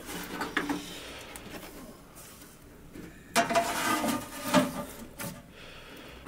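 A large round metal tray laid as a lid onto a wide metal cooking pot, clanking and scraping against the rim with a ringing burst about three and a half seconds in and lighter knocks before and after.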